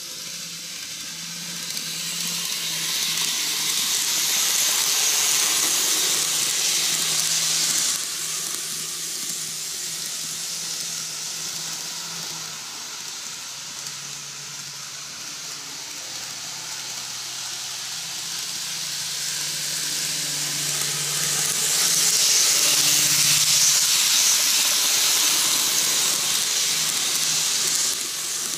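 N-gauge model trains running on curved cant track: a steady hiss of small metal wheels rolling on the rails, with a faint low motor hum. It swells over a few seconds and drops off suddenly, then builds again to a louder peak as a train passes close, falling away just before the end.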